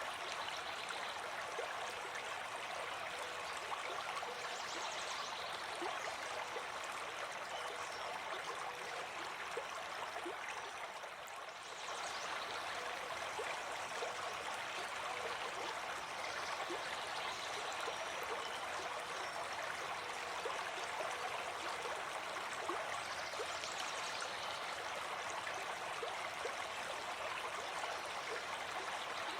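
Steady rushing and gurgling of running water, like a stream flowing over rocks, easing slightly for a moment about halfway through.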